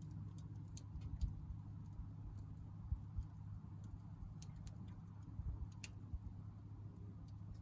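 Small wood fire crackling: scattered, irregular pops and snaps from the burning firewood over a low steady rumble.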